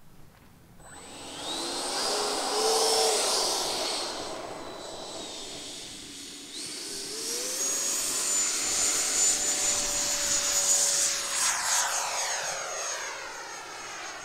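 Freewing Avanti electric ducted-fan jet on a 6S pack spooling up with a rising whine about a second in, easing off, then throttling up again around seven seconds to a steady high whine for the take-off run and climb. Near the end the whine sweeps and wavers as the jet climbs away.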